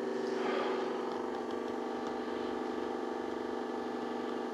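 A steady droning hum of several even tones that hold their pitch, with a few faint ticks over it.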